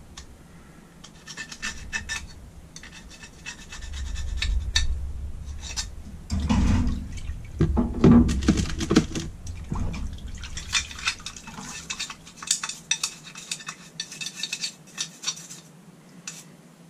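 A toothbrush scrubbing a small metal Holley carburettor part, quick scratchy strokes, to clear off leftover bits of old gasket. Around the middle, liquid sloshes and metal parts clink in the cleaning tank.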